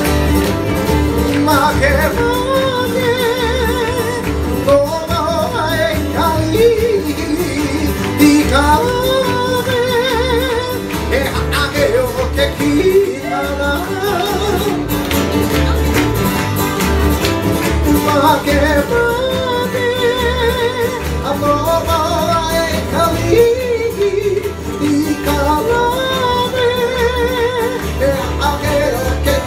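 Live Hawaiian song: a man sings in a wavering voice with vibrato over strummed acoustic guitars keeping a steady beat.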